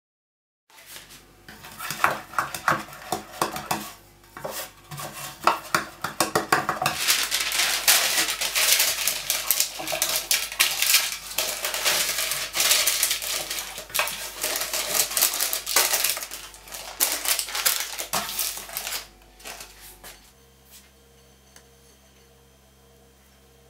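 Parchment paper crackling and rustling as it is folded and pressed into a baking pan, with frequent knocks and clatter from the pan being handled. About 20 seconds in it stops, leaving only a faint steady hum.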